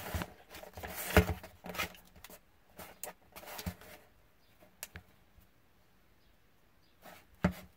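Scattered rustles and clicks of plastic packaging being handled, ahead of cutting it open. The sounds come thickly at first, then a mostly quiet stretch, then one sharp click near the end.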